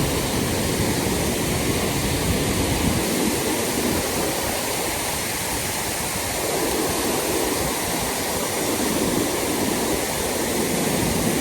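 Mountain stream water rushing over rocks: a steady, loud rush, with a low rumble that is stronger at first, drops back, and returns near the end.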